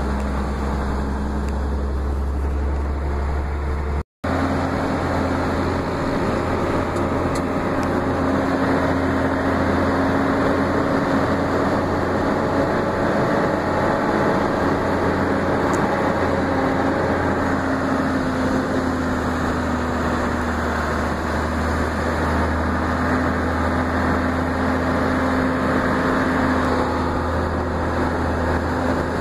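Engine and road noise of a moving road vehicle, heard from inside it: a steady hum and rumble that breaks off for a split second about four seconds in.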